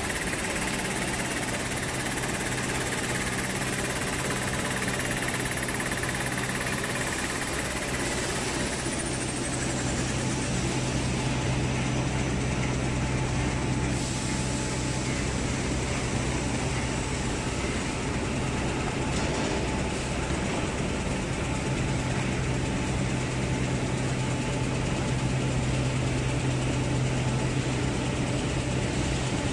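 Tissue paper rewinding machine running at speed, a steady mechanical drone with a low hum under it. A high whine slides down in pitch about nine seconds in.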